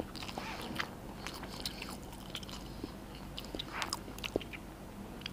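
Plastic spoon and fork clicking and scraping in a plastic takeaway box as rice is scooped up, with quiet chewing. A few small, scattered clicks and short scrapes, the longest scrape about four seconds in.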